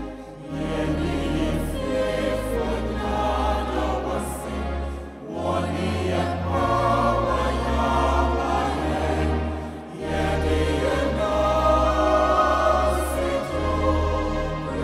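Mixed choir singing a Twi gospel song in harmony over instrumental backing with sustained low bass notes. The singing comes in phrases, with short breaks about five and ten seconds in.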